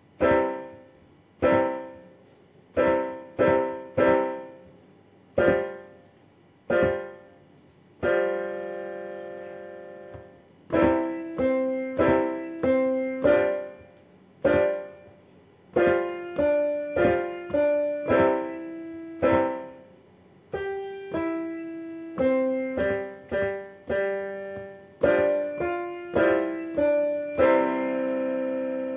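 Piano playing a simple march-tempo beginner piece in C major: detached chords struck at a steady beat, a long chord held and left to ring about eight seconds in, then a melody over short chords in the bass.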